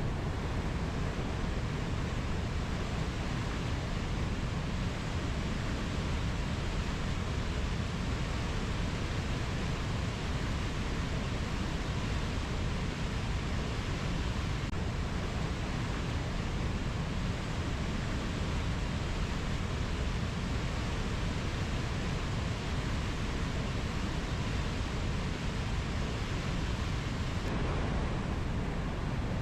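Steady, even rushing noise of a nature ambience recording, heaviest in the low end, with no distinct bird or insect calls.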